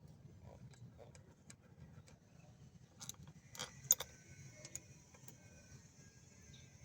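Scattered light metallic clicks and clinks, with a louder cluster about three to four seconds in, over a faint low hum.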